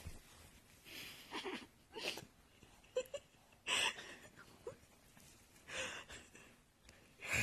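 A person's quiet, breathy, wheezing breaths in about six short bursts, with a few brief whimpering squeaks between them.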